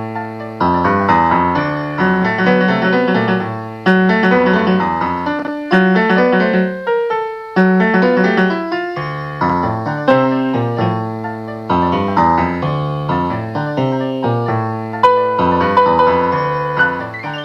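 Solo piano playing a slow instrumental piece: low bass notes and chords struck every second or two and left to ring and fade, with a melody line above them.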